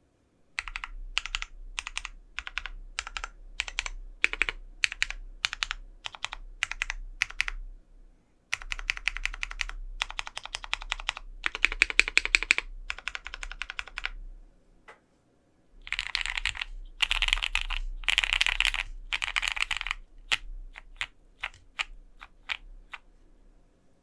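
Typing on a Vega mechanical keyboard with lubed, broken-in Cherry MX Black Hyperglide switches, an aluminium plate and GMK keycaps, dampened by PCB-plate foam and two layers of case foam. Single keystrokes come at about two or three a second, then fast continuous typing, a brief pause, a louder dense flurry of keystrokes, and single keystrokes again near the end.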